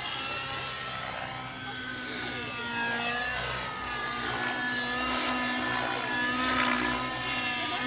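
A 90-size glow-engine RC helicopter flying 3D aerobatics: the engine and rotor run steadily, their pitch rising and falling as the model manoeuvres.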